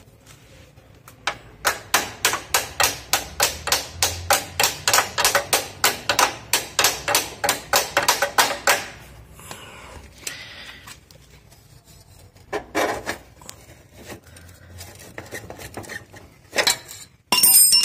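Rapid hammer taps on metal, about five a second for some seven seconds, driving the rear axle spindle out of a motorcycle's wheel hub. A few loose metallic clanks follow, the loudest near the end.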